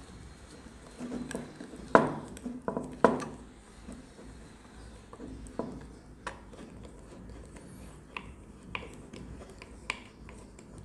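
Hand screwdriver turning a long screw into a wooden block, with scattered clicks and light knocks of the tool, screw and wood; two sharper knocks come about two and three seconds in.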